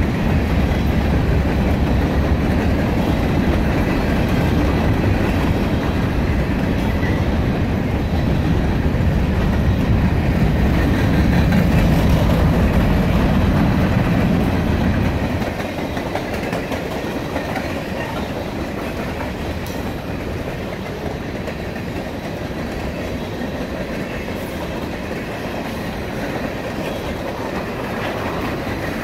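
Empty covered hopper cars of a freight grain train rolling past: a steady rumble with wheels clacking on the rails. About halfway through, the deep rumble drops off and the passing goes quieter.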